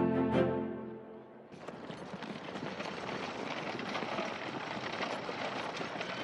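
Background music fades out within the first second. From about a second and a half in comes a steady clatter of horses' hooves and horse-drawn cart wheels on a road.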